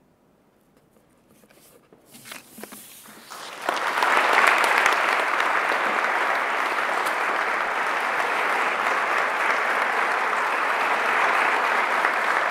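Audience applauding. After about two seconds of near silence, a few scattered claps start, and they build into full, steady applause about four seconds in.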